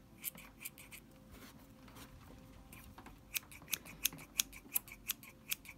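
Small scissors snipping wool fibres, faint and crisp: a quick handful of snips in the first second, a pause, then a steady run of snips from about three seconds in.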